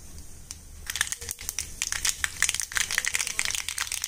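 Mustard seeds spluttering in hot coconut oil in a kadai, the tempering step. A few scattered pops at first, then from about a second in a dense, irregular crackle of popping as the seeds burst.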